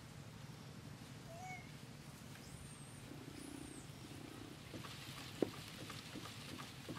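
Faint outdoor ambience: a few short high chirps and whistles in the first half, then a run of light clicks and rustles, with one sharp click about five seconds in.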